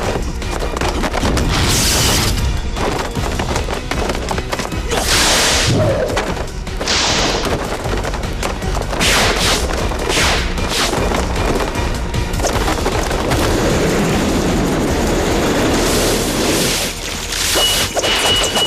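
Action-film soundtrack: music under a series of booming, crashing impact effects, with several sharp hits spread through.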